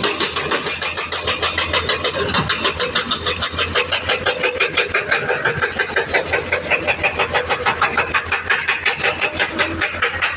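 Heavy earthmoving machinery's diesel engine running steadily, with an even pulsing beat of about six or seven a second.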